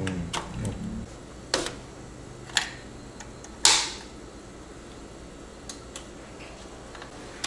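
A handful of separate sharp clicks and knocks from hands working on the parts inside an open desktop PC case. The loudest comes about three and a half seconds in.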